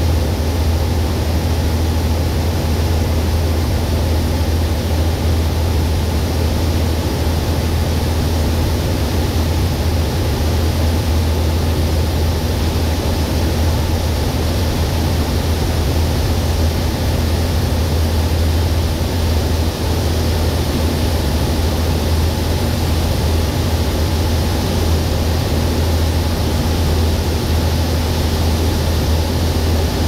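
Harvest machinery running steadily: a constant deep engine hum with an even rushing noise over it.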